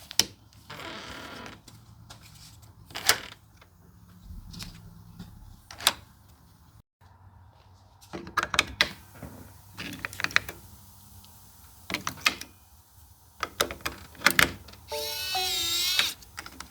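Sharp clicks and knocks of a fingerprint smart lock being pressed onto its mounting plate and snapped into place, then near the end the lock plays a short electronic chime of stepped, falling tones.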